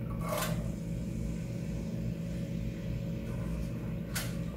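A steady low mechanical hum throughout, with a short rushing burst about a third of a second in as chopped onion is tipped into the oiled saucepan, and another brief burst near the end as a wooden spoon stirs the onion in the pan.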